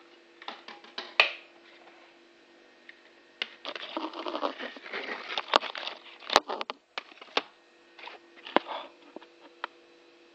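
Handling noise of a phone being moved about in the hand: scattered sharp clicks and knocks, with a rubbing, scraping stretch from about three and a half to seven seconds in. A steady low hum runs underneath.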